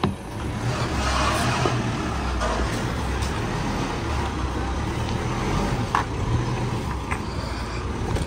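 Mitsubishi Montero Sport GT 4x4's diesel engine pulling steadily as the SUV crawls up a steep, rocky dirt trail, heard from behind the vehicle. A few short sharp knocks come about six and seven seconds in.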